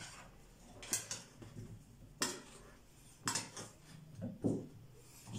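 A utensil clinking and scraping against a metal pizza pan as a baked pizza is cut and loosened in it: four sharp clinks about a second apart.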